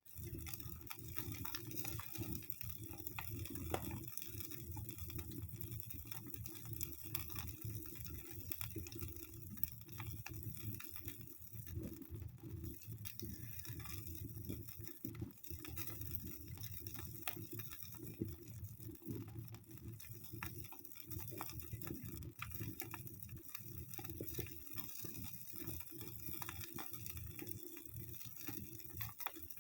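Wood fire crackling in a fireplace: a steady bed of irregular small snaps and pops.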